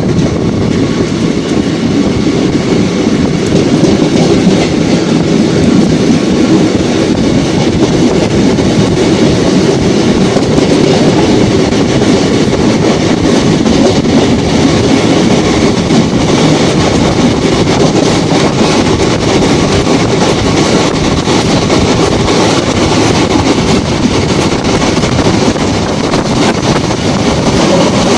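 A moving passenger train heard from on board: a loud, steady rumble of wheels running on the rails, mixed with rushing air.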